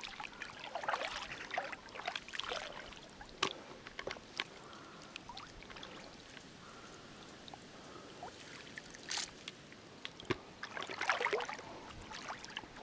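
Water sloshing and splashing around a person's legs wading through shallow lake water, in irregular bursts with a quieter stretch in the middle.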